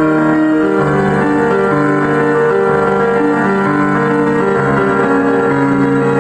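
Instrumental music with no vocals: held keyboard chords that change every second or so, at a steady level.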